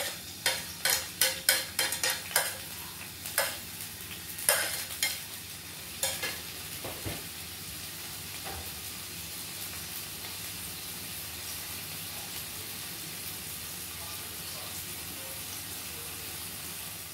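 Seasonings and kidney frying in a pan: a spoon knocks and scrapes against the pan many times over the first six seconds as it is stirred, then a steady sizzle of the frying.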